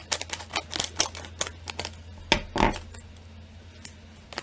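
Scissors cutting open a plastic snack bag: a quick run of snips and bag crinkles, with a louder rustle of the bag about two and a half seconds in.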